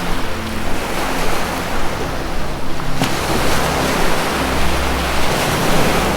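Ocean waves washing steadily, layered over a low, held music drone whose notes shift about three and four seconds in.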